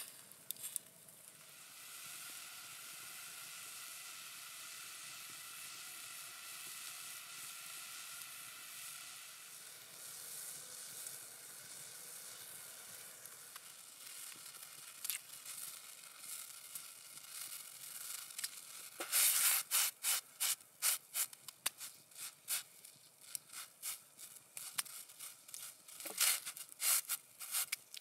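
Campfire cooking pots sizzling with a steady hiss and faint ringing tones as the water heats and steams. About two-thirds of the way in, a knife starts scraping the peel off a raw potato in quick, repeated strokes, which become the loudest sound.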